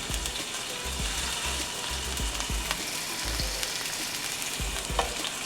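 Chicken thigh pieces sizzling in hot oil in a skillet, a steady frying hiss with occasional sharp clicks of metal tongs.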